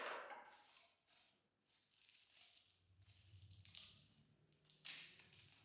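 Near silence: faint room tone with one tiny click about five seconds in.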